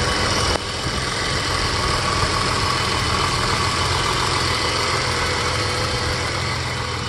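BMW M30 3.4-litre straight-six of a 1990 BMW 535i idling steadily with the bonnet open, still warming up after a cold start. It is a high-mileage original engine, around 260,000 miles.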